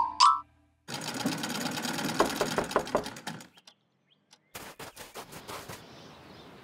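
Sewing machine running in a fast rattling run of stitches that stops after a couple of seconds, then a few more separate stitch clicks about a second later.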